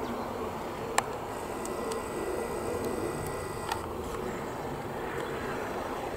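Steady outdoor background rumble, with two sharp clicks, about one second in and near four seconds in.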